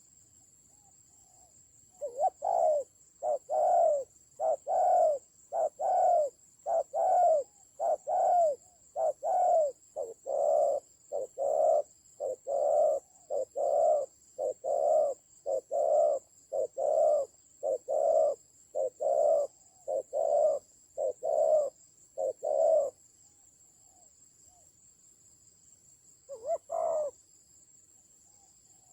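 Spotted dove cooing over and over, a long, steady run of coos for about twenty seconds, then a pause and one more coo near the end. A steady, high-pitched insect buzz sounds underneath.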